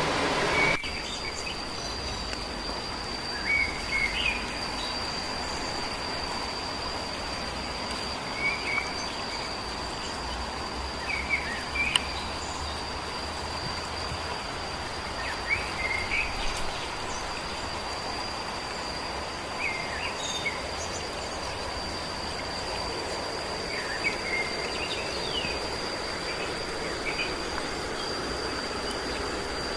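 Outdoor forest ambience: a steady high-pitched insect trill over an even hiss, with short chirping calls every few seconds.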